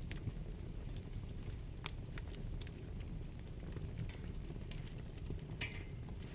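Wood fire burning in a fireplace: a steady low rumble with scattered sharp crackles and pops, and a longer hissing pop near the end.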